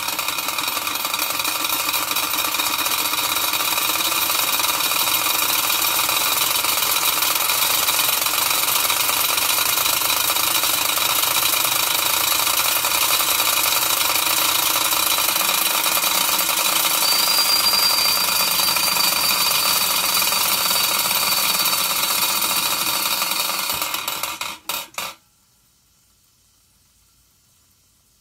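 Wilesco D6 model steam engine's boiler whistle blowing steadily: a loud rush of steam with several high whistle pitches held over it. It sputters briefly and cuts off near the end.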